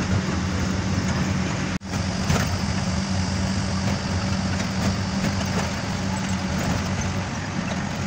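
Ashok Leyland Ecomet truck's diesel engine running steadily at cruising speed under road noise, heard from inside the cab: a steady low hum with a momentary dropout about two seconds in.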